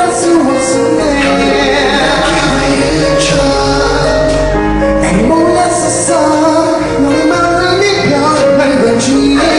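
Live pop song: a man sings a melody into a microphone over instrumental accompaniment.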